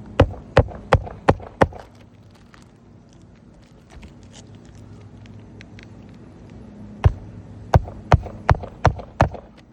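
Hammer driving roofing nails into an asphalt shingle: a quick run of about five blows, a few light taps, then about six more blows near the end.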